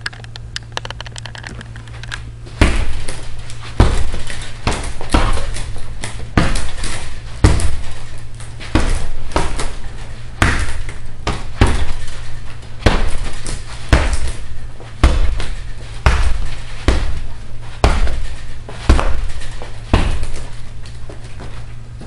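Hanging heavy punching bag being struck hard again and again, about twenty heavy blows at roughly one a second, beginning about two and a half seconds in.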